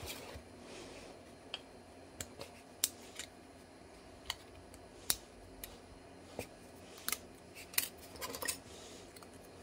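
Hobby knife cutting 1 mm styrene plastic sheet, with the cut piece bent and handled, giving irregular sharp clicks and ticks.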